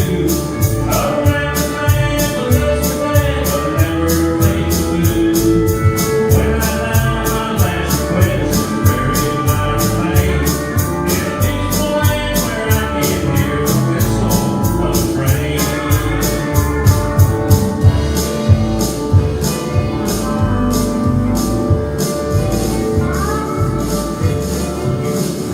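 Live country band playing a song, with drums keeping a steady beat under the melody.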